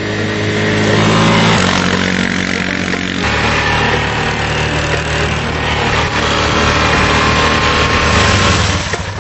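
Electronic background music with a droning, distorted bass and synth. Its held notes jump abruptly to new pitches about one and a half and three seconds in.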